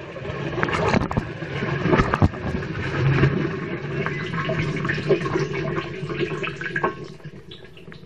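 Water sloshing and splashing inside a turning front-loading washing machine drum, heard from within the drum, with scattered clicks of water and a low hum underneath; it grows quieter near the end.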